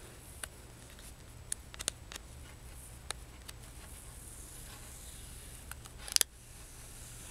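Fingernail picking at the edge of a protective plastic film on a smartphone's glass screen: faint scattered clicks and scratches, then a louder cluster of clicks about six seconds in as the film comes away from the screen.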